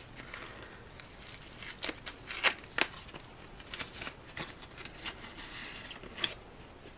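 Irregular light crinkles, crackles and clicks of a small envelope being handled and opened to get a pin out, with a few sharper ticks.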